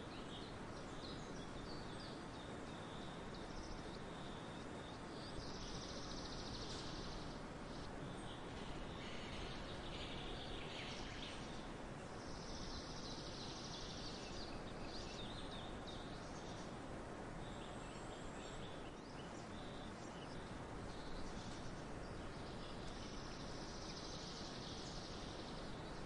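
Faint outdoor background noise. A high buzzing sound of about two seconds rises out of it three times, with faint short high chirps in between.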